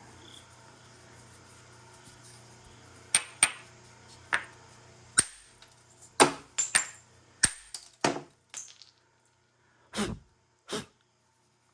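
Pieces of chert clicking and knocking against each other as they are handled: about ten sharp stone-on-stone clinks in an uneven run, then two duller knocks near the end.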